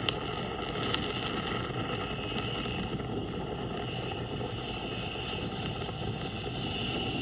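Falcon 9 first stage's nine Merlin 1D engines during ascent: a steady rumbling noise with hiss, with a couple of sharp crackles in the first second.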